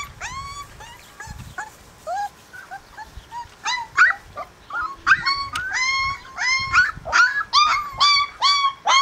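A puppy whimpering and yelping in a long string of short, high cries, each rising in pitch. The cries grow louder and come closer together from about four seconds in.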